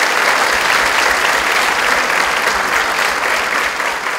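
Audience applauding in a hall, dense, steady clapping from many people at the end of a speech.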